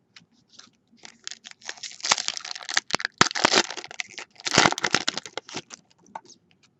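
Foil wrapper of a trading-card pack being torn open and crinkled, with a dense run of crackles over several seconds, mixed with the cards being handled.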